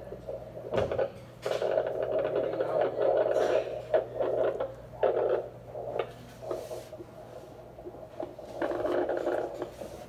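Handheld fetal Doppler monitor picking up an unborn baby's heartbeat: whooshing, staticky sound over a steady electrical hum, coming and going in stretches as the probe finds and loses the heartbeat.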